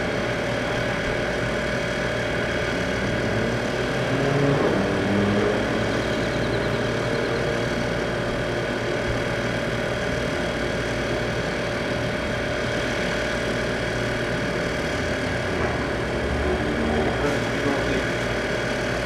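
A steady mechanical hum with one constant tone, and a rising whine about three to five seconds in.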